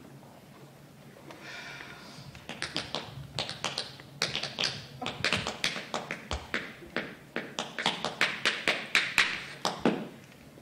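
Tap shoes tapping out a rhythm on a wooden stage floor: crisp, quick taps in irregular rhythmic phrases that start about two seconds in and grow louder, the strongest strikes coming near the end.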